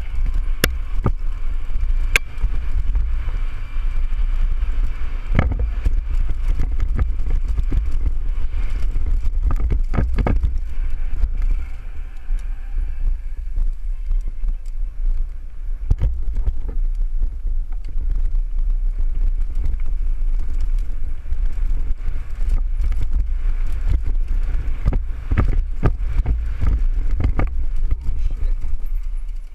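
Mountain bike riding down a dirt singletrack: a steady low rumble of wind buffeting the microphone, with scattered sharp clicks and knocks as the bike rattles over the rough trail.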